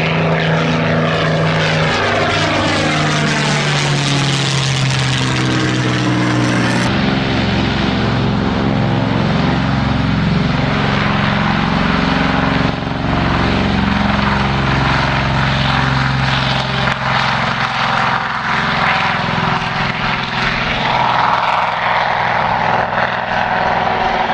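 Propeller aircraft flying past, its engine drone dropping in pitch as it goes by. About seven seconds in the sound changes abruptly to a steady propeller-engine drone that runs on, with a higher engine tone coming in near the end.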